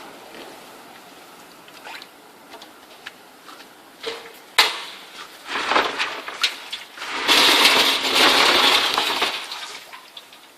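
Air-powered wet/dry industrial vacuum sucking up loose debris, with clicks and clinks of hard bits and a sharp knock, then a loud rush of suction lasting about two seconds in the second half.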